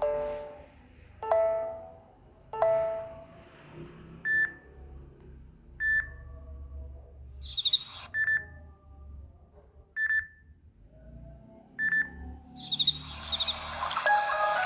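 Samsung Galaxy Young S6310 ringtones: three chiming notes that die away, then five short beeps about two seconds apart with a brief high chirping trill twice among them. Near the end a fuller ringtone melody starts.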